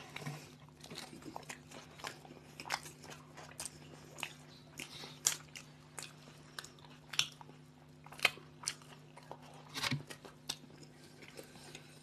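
Two people biting into and chewing sandwiches close to the microphone: irregular wet mouth clicks and crunches of bread, a few sharper bites standing out.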